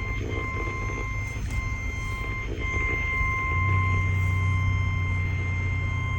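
NOAA Weather Radio's 1050 Hz warning alert tone, a single steady tone that signals a warning is about to be broadcast. It breaks briefly twice in the first three seconds. Under it runs a low hum that gets louder about three and a half seconds in.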